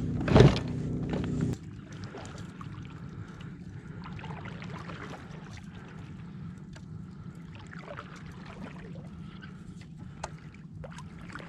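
Kayak drifting on calm water: faint water lapping and small knocks against the hull. A loud thump comes about half a second in, and a steady low hum cuts off at about a second and a half.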